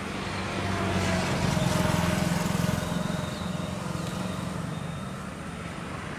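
A motor vehicle passing on the road: a low engine hum that swells about two seconds in and then fades away.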